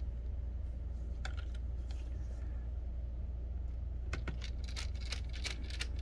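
Light clicks and taps of a screwdriver and small metal laptop parts being handled, a few scattered at first and a quick run of them in the last two seconds, over a steady low hum.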